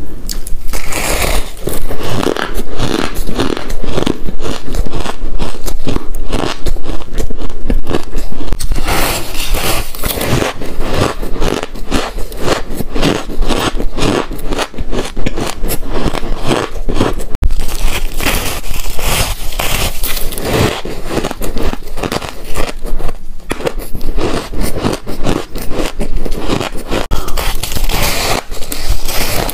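Crunching of refrozen powdery ice as it is bitten and chewed close to the microphone: a dense, continuous run of crisp crunches and crackles.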